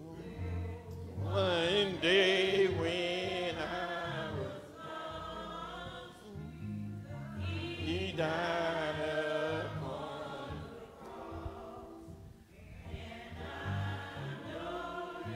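Slow gospel hymn sung by voices in phrases that swell and fade, over steady low bass accompaniment.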